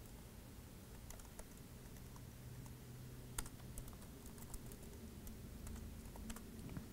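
Typing on a computer keyboard: light, irregular key clicks, faint.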